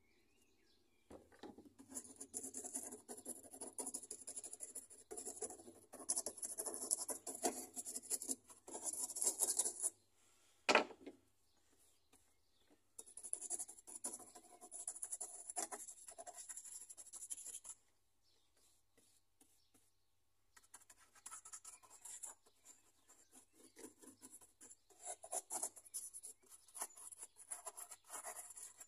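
Stiff paintbrush scrubbing and dabbing paint onto a rough foam mountain, a dry scratchy brushing in three spells with short pauses between. A single sharp tap about eleven seconds in.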